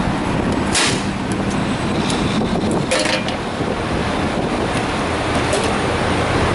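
Steady rumble and hiss of idling diesel truck engines at a fuel island, with a few short sharp clicks about one and three seconds in.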